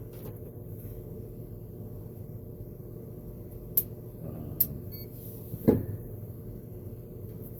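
A few sharp clicks and a knock from handling the radial arm saw motor's relay and switch parts, the loudest about two-thirds of the way in, over a steady low hum.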